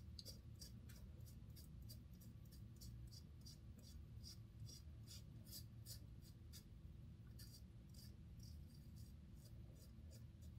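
Faint scraping of a BIC Flex 4 four-blade disposable razor cutting through lathered stubble, in short quick strokes a few times a second.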